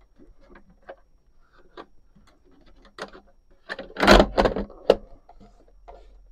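Small clicks and knocks as the rotating clamp on a cranked aluminium table leg is undone, then a louder clatter about four seconds in and a sharp knock just after, as the skim-board table top is swung up on the leg into its upright stowed position.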